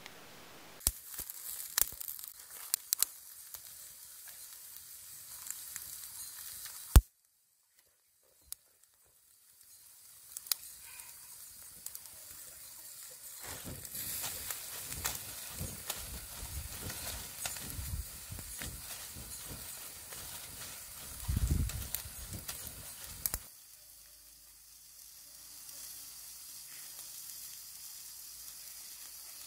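Whole snakehead fish grilling on a bamboo rack over a wood fire: embers crackling and the fish sizzling, with sharp pops. A loud pop about seven seconds in is followed by a few seconds of silence, and the crackling and sizzling is busiest in the middle stretch before settling to a softer hiss near the end.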